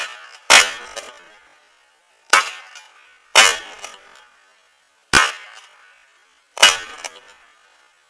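Shotgun firing six shots at irregular intervals of about one to two seconds, each a sharp bang with a short echoing tail.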